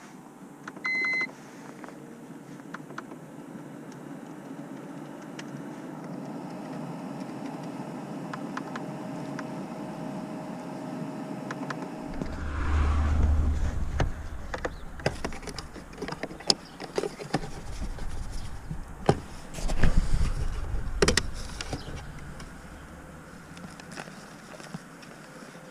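Plastic clicks, knocks and thumps inside a BMW E46 as the glove-compartment fuse box is opened and fuses are handled, with a short electronic beep about a second in. The handling grows busy about halfway through, and the heaviest thumps come near the middle and about three-quarters of the way in.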